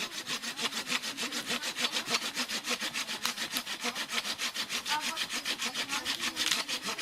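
Hand saw cutting through a wooden branch for firewood, back and forth in quick, even strokes, several a second.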